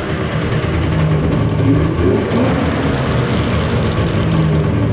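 Polaris XCR 600 three-cylinder two-stroke snowmobile engine running, with the throttle blipped twice around two seconds in. It is freshly running again after its clogged carburettor jets were cleaned.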